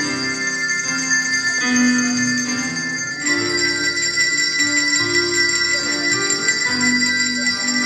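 Children's handbell choir ringing handbells: long, ringing bell tones over a simple melody of held notes, with a new set of bells struck about three seconds in.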